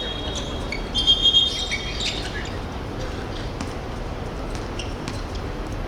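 Short, sharp high-pitched squeaks about a second in, pulsing three times, over the steady noise of an indoor sports hall during a korfball game.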